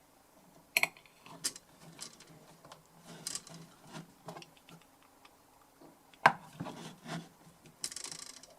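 Scattered light clicks and knocks of small parts being handled while a circuit board is fitted into a metal DI box housing. The sharpest click comes about six seconds in, and a brief scraping rub follows near the end.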